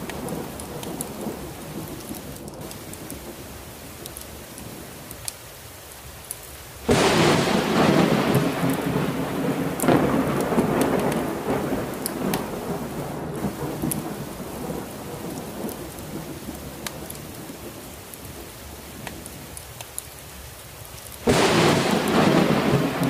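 Steady heavy rain with rolling thunder: a thunderclap breaks suddenly about seven seconds in and rumbles away over several seconds, and a second clap breaks near the end.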